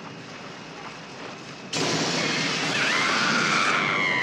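Staged film sound effects of an airliner cabin breaking apart: a low cabin rumble, then a sudden loud crash and rushing roar about two seconds in, with a young man's long wavering scream over it.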